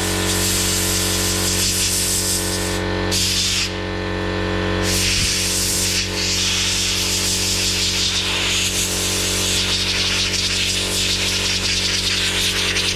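A loud, steady hiss of a pressurised gas jet working on a diesel-heater burner, cutting out briefly twice in the first few seconds, over background music.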